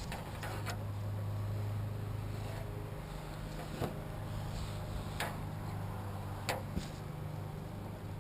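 A few sharp clicks and knocks from hands-on repair work on the truck, four in all, the last two close together, over a steady low hum.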